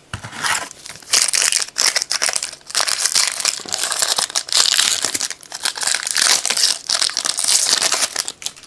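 Wrapper of a 2013 Topps Football trading-card pack being torn open and crinkled by hand: a dense crackling rustle that comes and goes from about a second in until near the end.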